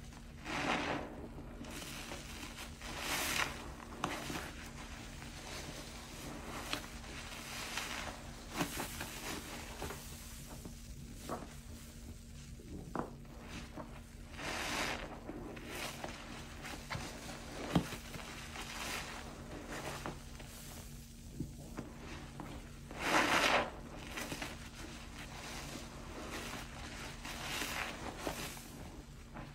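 Soap-soaked sponge squeezed and wrung by hand over a basin of sudsy water: wet squelching and crackling foam, with water and suds running back into the basin in irregular bursts every few seconds. A faint steady hum sits underneath.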